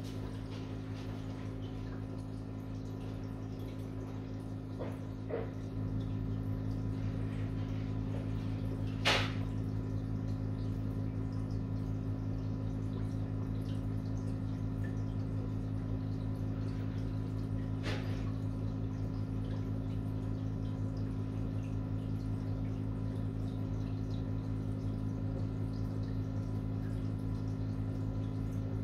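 Aquarium air pump humming steadily, driving sponge filters whose bubbles trickle and splash at the water surface. The hum gets louder about six seconds in, and two sharp pops stand out, one about nine seconds in and one about eighteen seconds in.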